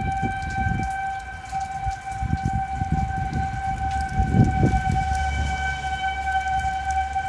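Outdoor tornado warning siren sounding a steady, unwavering tone, the sign of an active tornado warning. Gusty wind rumbles irregularly on the microphone underneath it.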